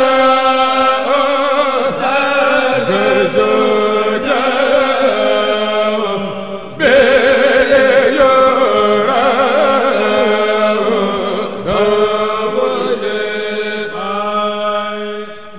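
A kourel, a group of men chanting a Mouride khassida in unison, in long melodic phrases. One phrase ends and the next starts about seven seconds in, and the singing fades out near the end.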